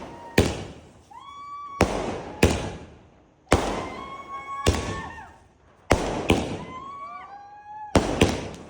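A multi-shot aerial fireworks cake firing: about nine sharp bangs, one every second or so and sometimes two in quick succession, with short whistles between them.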